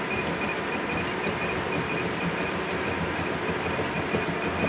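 Juki AMS-210EN computer-controlled pattern sewer jogging its work clamp along the programmed pattern without stitching: a steady mechanical hum from the machine with faint high ticks about five times a second, as the clamp's position is checked against the pattern.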